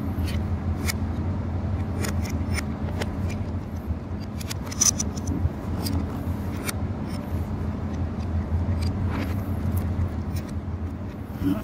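Scattered metallic clicks and light scrapes from parts of a lifeboat engine's cooling water pump being handled during dismantling, over a steady low machinery hum. Two sharper clicks come a little before the middle.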